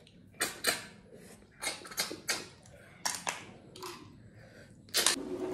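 Sharp mouth sounds of eating snails: short sucks and smacks as the snail meat is pulled from the shells, about eight of them, several in quick pairs.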